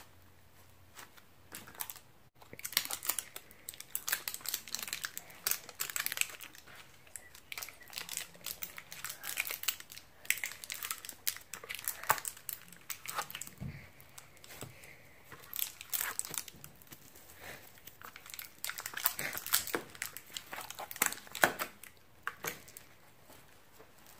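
Kinetic foam, tiny foam beads bound in a stretchy putty, squeezed and kneaded by hand, giving dense, irregular crackling and crinkling, beginning about two seconds in. Around the middle, fingers dig into loose beads in a clear plastic tray, which crinkles too.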